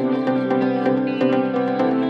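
Instrumental background music: a steady drone under a run of quick notes.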